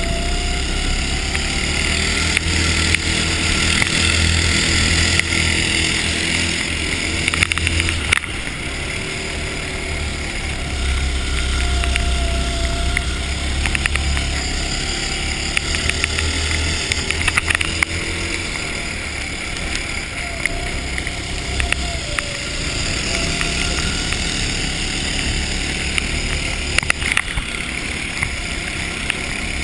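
Ice go-kart engine running hard, heard from onboard, its pitch rising and falling as the throttle comes on and off through the corners. A heavy low rumble of wind on the microphone comes and goes, with scattered sharp ticks and knocks.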